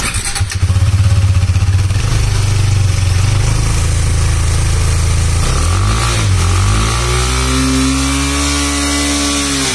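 KTM Duke 390's single-cylinder engine running through its stock exhaust, with the bike in gear on a stand and the rear wheel spinning. A steady low beat for about five seconds, then the revs climb and hold higher before easing off at the end.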